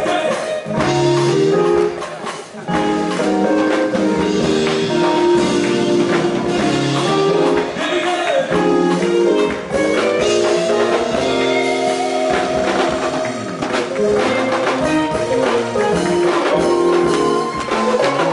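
Live gospel band music with group singing: voices holding and bending notes over a steady drum beat and electric guitar.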